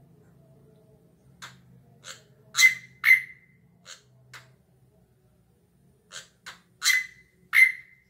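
A caged drongo (srigunting) giving short, sharp whistled notes, about ten in all, several coming in pairs, the loudest ones ringing briefly.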